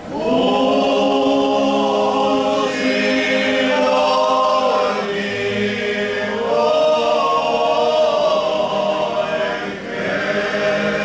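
Men's folk singing group singing a traditional Slavonian song unaccompanied, in long held phrases with several voices together. A short break near the end before the next phrase starts.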